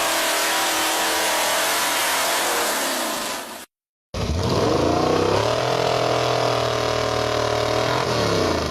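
Petrol chainsaw: loud, rough noise for about three and a half seconds that cuts off abruptly, then after a short gap the engine revs up to a steady high pitch, holds it, and falls away near the end.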